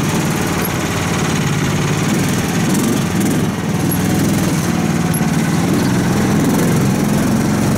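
A karakat all-terrain vehicle's 15-horsepower engine running steadily as it drives, its pitch wavering a little, slightly louder from about halfway through.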